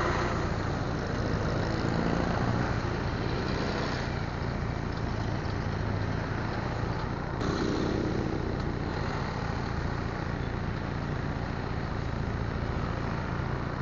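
Steady motor vehicle and road noise, with a sharp click about seven seconds in.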